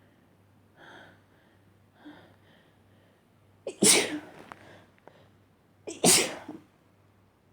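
A person sneezes twice, about two seconds apart. Each sneeze is a loud, sharp burst with a brief catch just before it, and a few faint breaths come before the first.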